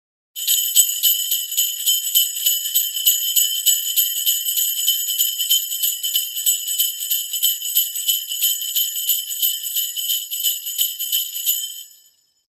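Sleigh bells shaken in a steady rhythm, a bright continuous jingle that stops near the end.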